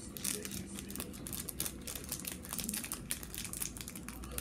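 Plastic snack bag crinkling as it is handled, a dense run of small crackles.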